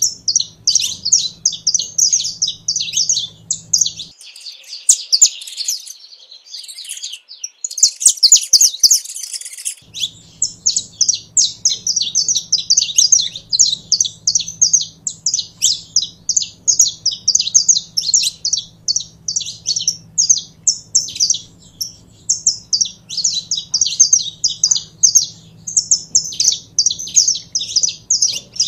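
Saffron finch singing: a long run of quick, sharp chipping notes, several a second. From about four to ten seconds in there is a denser, hissier stretch of twittering.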